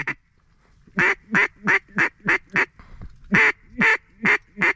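A series of loud hen-mallard quacks: six in a steady run about a second in, a short pause, then four more, at about three a second.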